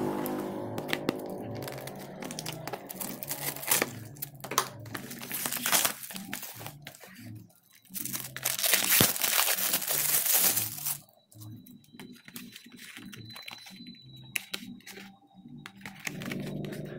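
Clear plastic wrapping crinkling and tearing as it is pulled off cardboard boxes, in irregular crackly bursts, loudest about eight to eleven seconds in.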